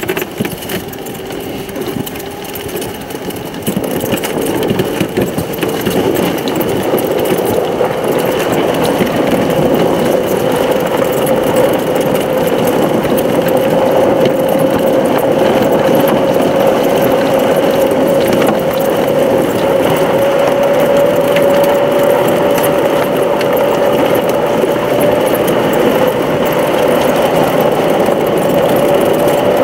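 Electric off-road golf cart driving along a dirt trail: tyre noise on the track under a steady electric motor hum that rises slowly in pitch. The sound grows louder about four to six seconds in, then holds steady.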